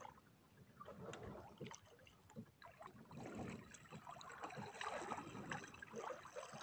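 Faint water sloshing and splashing around a small boat's hull, with scattered soft knocks; it grows louder about halfway through.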